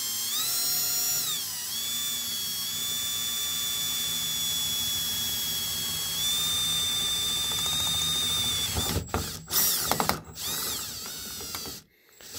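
Cordless Milwaukee drill boring a twist bit into a steel truck door: a steady motor whine whose pitch shifts with trigger speed, then several short stop-and-start bursts near the end.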